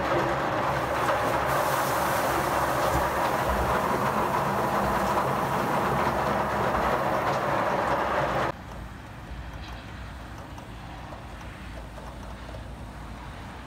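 Heavy thunderstorm rain, a loud steady rush of water, cutting off abruptly about eight and a half seconds in and leaving a quieter, even rushing noise.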